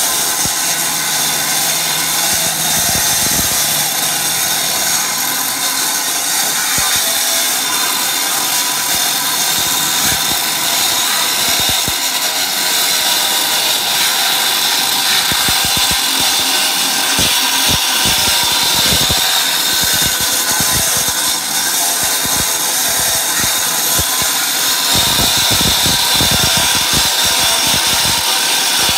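Large corded electric angle grinder cutting into a concrete slab: a steady, high-pitched grinding noise of the disc in the concrete.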